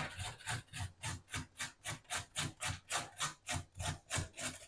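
Food being grated on a hand grater over a wooden cutting board: a steady run of rasping strokes, about four a second.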